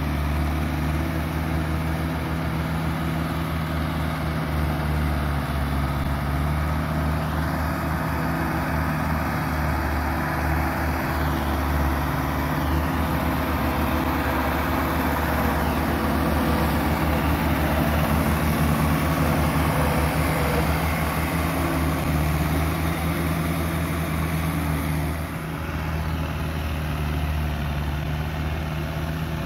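Farm tractor's diesel engine running steadily under load while pulling a rotary tiller through dry paddy soil. The engine note holds even throughout, swelling slightly in the middle and dipping briefly near the end.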